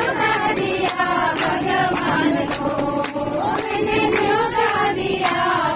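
A group of women passengers singing a devotional song together, with hand claps keeping the beat.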